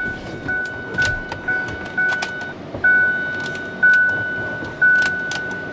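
Ford F-350 dashboard warning chime dinging over and over, about twice a second at first and then about once a second, with a few light clicks. The key is on and the door open, but the starter does not crank.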